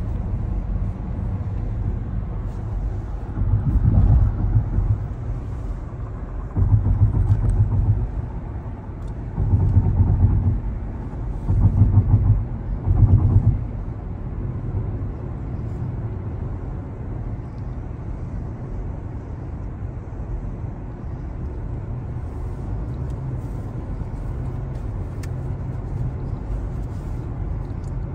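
Road noise inside a moving car on a highway: a steady low rumble, with five louder swells of about a second each in the first half.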